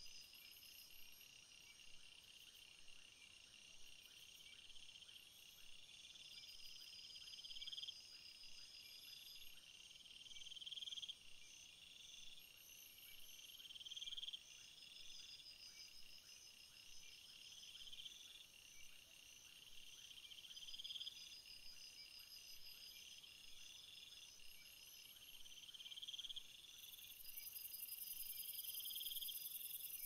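Faint chorus of crickets and other insects chirping: a trill that swells and breaks off about every one and a half seconds over steady high-pitched chirping. Near the end a higher, hissing buzz joins in.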